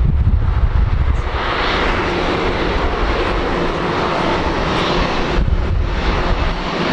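Boeing 787-8's Rolls-Royce Trent 1000 turbofan engines running steadily as the airliner rolls past along the runway, with low wind rumble on the microphone in the first second.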